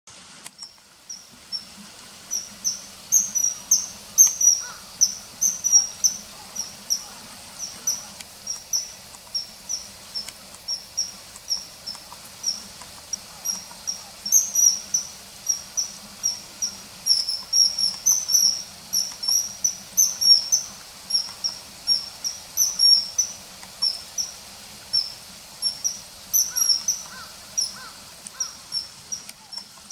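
Common kingfisher calling: a run of shrill, high, short chirps, about two to three a second, sometimes doubled into quick pairs.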